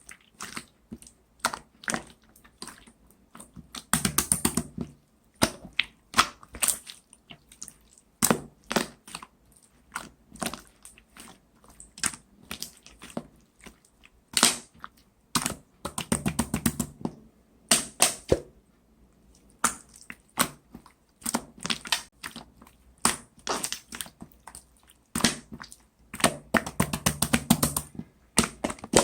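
Clear slime being pressed and squished by hand, giving a stream of sticky clicks and small air-bubble pops, with three longer runs of dense crackling pops.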